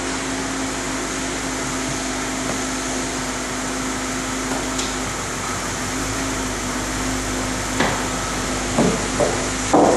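VW Passat idling, a steady whir with a constant low hum. A few sharp knocks come near the end as the driver settles into the seat.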